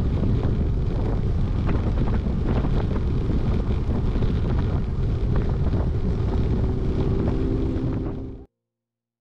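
Wind buffeting the microphone while riding a bicycle on the road, a loud steady rush with constant gusty crackle. A faint steady tone joins about five and a half seconds in, and everything cuts off abruptly about eight and a half seconds in.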